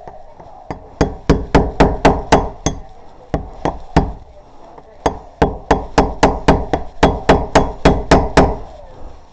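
Loud, sharp knocks against the locked door as the locksmith works on it, coming about three a second in three runs with short pauses between.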